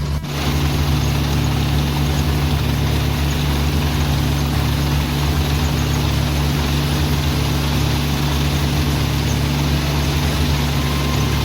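Kubota combine harvester running with a steady engine drone.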